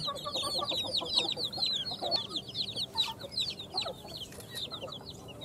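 A group of young domestic chicks peeping continuously: a dense stream of short, high-pitched peeps, each dropping in pitch, many overlapping at once. The peeping thins a little near the end.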